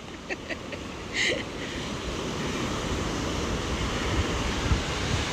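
Ocean surf washing onto the beach, a steady rush of water that grows gradually louder, with wind on the microphone.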